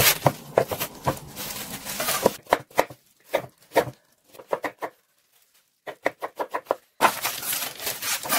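Chef's knife slicing vegetables on a wooden cutting board: a steady run of quick knocks of the blade on the board, broken by a pause of about two seconds in the middle.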